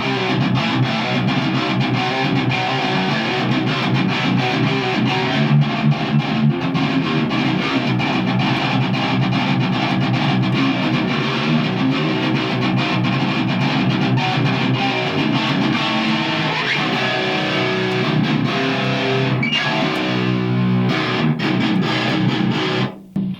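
Electric guitar played through a guitar amp set for distortion at about half gain, with fast, continuous picked riffing. It stops abruptly near the end.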